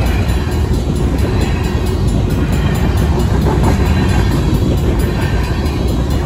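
Freight train of covered hopper cars rolling past at a crossing: a steady, loud rumble of steel wheels on the rails.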